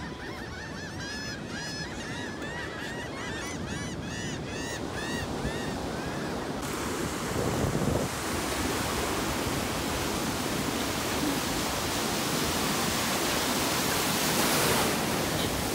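Ocean waves breaking in the surf, with wind on the microphone, from about six and a half seconds in. Before that, a fast run of short squeaky calls, about two or three a second, over wind and distant surf.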